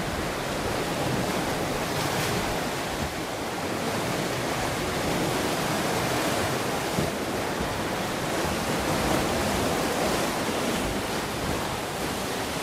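Steady wash of Lake Superior waves against the rock shoreline, with wind on the microphone.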